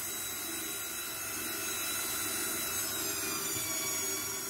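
KitchenAid Artisan stand mixer's motor running steadily, driving the pasta roller attachment as a sheet of pasta dough passes through the rollers. A steady motor whine that dips slightly in pitch near the end.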